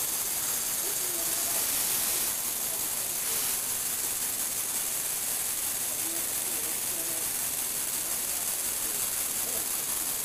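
Steady hissing whir of a Lego Technic motor and gear drive turning a tilted turntable, a little brighter about two to three and a half seconds in.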